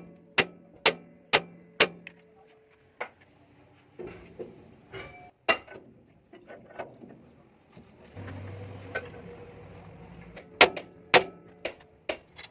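Hammer blows on metal suspension parts: a run of five sharp, ringing strikes about two a second, then scattered knocks. A steady noise lasts a couple of seconds, followed by four more strikes near the end.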